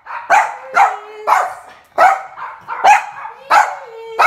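Small dog barking repeatedly, about two barks a second, with a drawn-out whine between barks twice.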